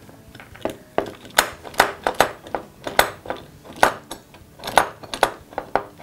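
Steel bar clamp being fitted and tightened across a wooden frame: a run of irregular metallic clicks and knocks as the jaws slide along the bar and butt against the wood, some with a short ring.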